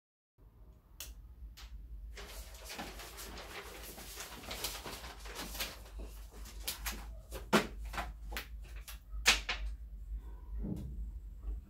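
Paper or plastic wrapping crinkling and rustling as it is handled and crumpled, followed by a series of sharp knocks and light clatters of books and objects being set down on a desk, the two loudest knocks in the second half.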